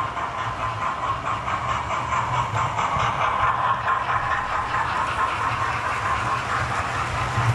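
Model railway trains running on the layout: a steady electric motor whine with fast, rhythmic clicking of wheels over the rail joints, a little louder from about three seconds in as coaches pass close by.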